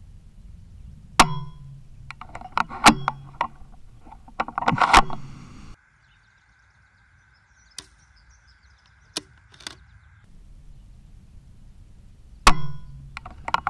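Tikka T3x CTR bolt-action rifle being dry-fired: a sharp trigger and firing-pin click on an empty chamber, then a quick run of metallic clicks and slides as the bolt is worked to recock it. After a cut there is a faint steady whine with a few single clicks, and the sharp click and bolt clicks come again near the end.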